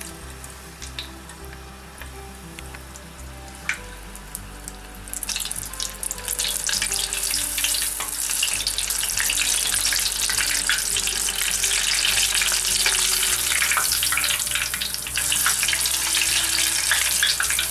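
Small mozzarella balls deep-frying in plenty of hot oil. A light sizzle with scattered pops turns into a loud, dense crackling sizzle about five seconds in.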